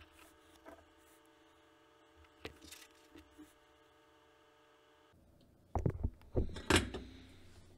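Soldering-bench handling: a faint steady hum with a few light ticks, then a cluster of loud knocks and clatter about six seconds in as the soldering iron and board are handled.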